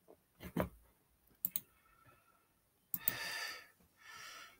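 A few sharp clicks, with a quick pair about one and a half seconds in, then two breaths close to the microphone about three and four seconds in.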